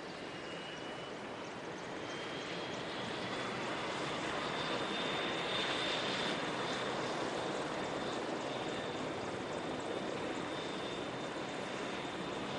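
AgustaWestland AW101 (MCH-101) helicopters passing low in formation. Rotor and engine noise builds over several seconds to a peak about halfway through, with a high, steady turbine whine over it, then eases only a little.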